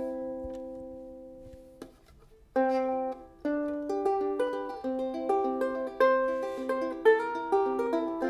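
Enya Nova Mini soprano ukulele fingerpicked: a chord rings out and fades for about two seconds, there is a short pause, then the picked melody resumes with notes and chords.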